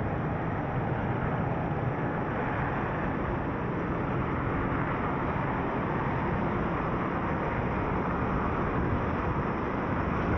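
Steady road noise of a car driving in city traffic: tyre and engine noise as an even rumble with no distinct events.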